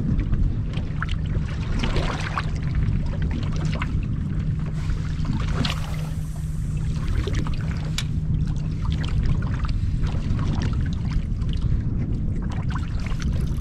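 Wind and water noise aboard a fishing boat on choppy open water, with a steady low hum that stops about nine seconds in. Scattered small clicks and knocks of fishing gear and reels being handled sound over it.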